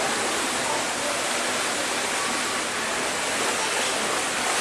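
Steady splashing and churning of pool water from a swimmer's flutter kick while swimming on a kickboard.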